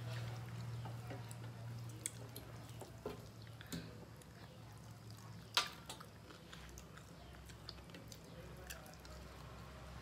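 Eating by hand from brass plates: fingers mixing rice against the metal and chewing, heard as scattered small clicks and wet smacks, the sharpest click about five and a half seconds in, over a low steady hum.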